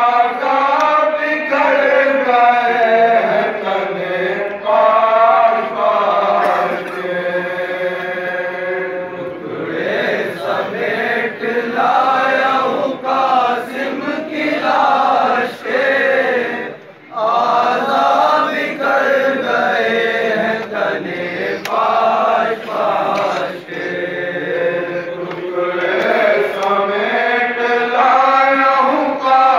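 Men's voices chanting a noha, a Shia lament, together in long drawn-out phrases, with a brief break about 17 seconds in.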